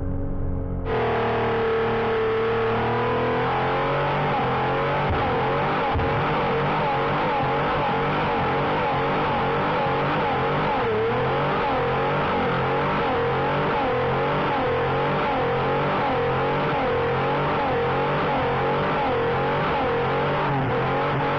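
Holden Commodore's 3.8-litre Buick V6 held at high revs during a burnout, the engine pitch wavering up and down steadily. It cuts in abruptly about a second in.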